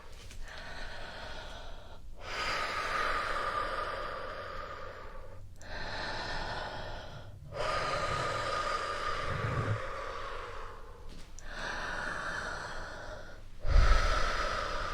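Slow, deep human breaths close to a sensitive ASMR microphone, drawn in and let out one after another, each lasting two to four seconds with short pauses between. Near the end a louder breath comes in with a low thump.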